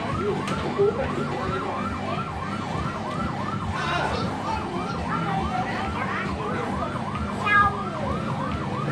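Electronic siren sound effect from a coin-operated fire engine kiddie ride, a fast wailing tone that rises and falls about three times a second without a break.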